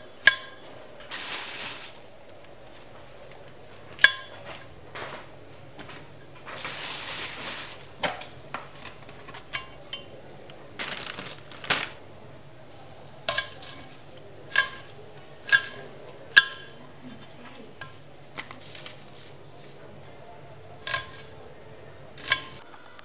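Kitchen knife cutting mushrooms and spring onions: the blade strikes a hard worktop in scattered, irregular clicks that ring briefly. A few short stretches of rustling come in between.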